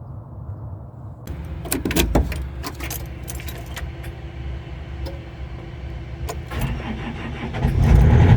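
John Deere 135G excavator's diesel engine running with a steady low rumble. Sharp clicks and rattles come over it, most of them in the first few seconds. The engine grows louder near the end.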